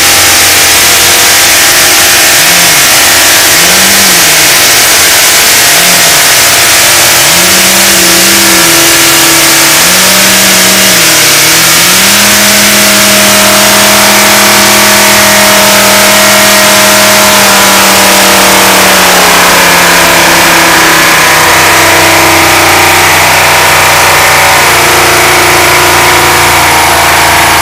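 A 1985 Dodge 250 van's V8 engine being deliberately run to destruction while it overheats and smokes. It is revved up and down about five times, then held at high revs for several seconds, and near the end it drops to a lower, steady running pitch.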